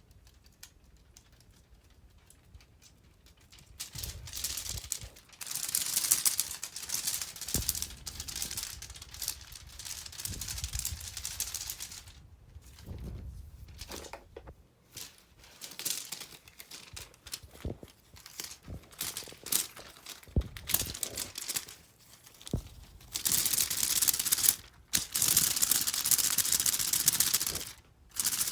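Irregular bursts of rustling and crinkling, with a few sharp clicks, starting about four seconds in and loudest near the end.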